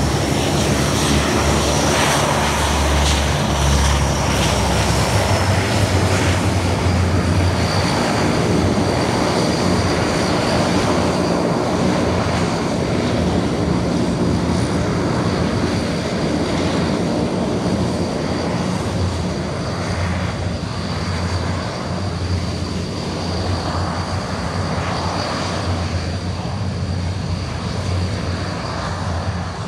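Antonov An-12's four Ivchenko AI-20 turboprop engines running as the aircraft taxis: a steady propeller drone with a thin high turbine whine, easing slightly in the second half as the plane moves away.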